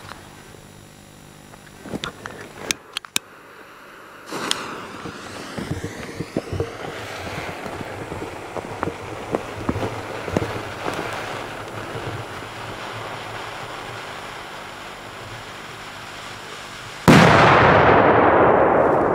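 A firework hissing and crackling with scattered pops for about thirteen seconds as it sprays smoke, then one loud bang near the end whose blast slowly fades.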